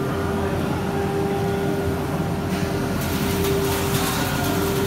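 CNC router machine running: a steady whine held on one pitch over a low rumble, with light clicks and hiss coming in about halfway through.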